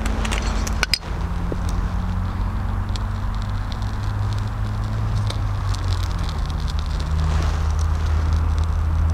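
Steady low engine drone from an unseen vehicle or machine, its pitch dropping slightly about a second in and again around six seconds. Faint crackling and ticking come from a small, freshly lit fire of birch bark and fir twigs.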